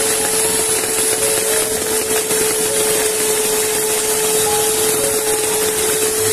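A small electric motor running steadily at one constant pitch, with an even whirring noise over it.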